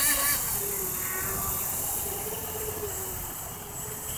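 Electric whine of a radio-controlled F1 tunnel-hull boat's 2500 kV brushless motor on a 3S battery, running at speed. The pitch wavers and dips slightly, and the sound fades as the boat runs farther away.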